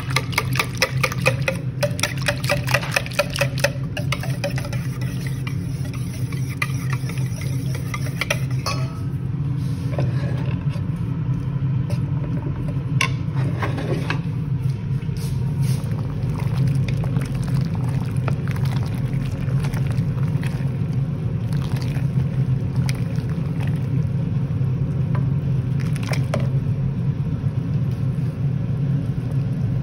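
A wire whisk beating cream sauce in a stainless steel bowl, the wires clicking against the metal several times a second for about the first nine seconds. A steady low hum runs under it all, and a few single knocks of a utensil on a pan come later.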